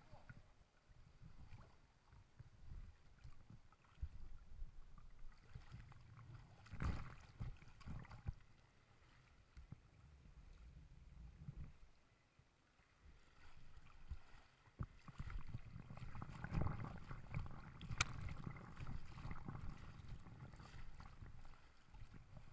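River water splashing and lapping around an inflatable inner tube and the towing craft, churned by the rider paddling with his hands; the splashing swells about seven seconds in and again from about fifteen to twenty seconds, with one sharp click near eighteen seconds.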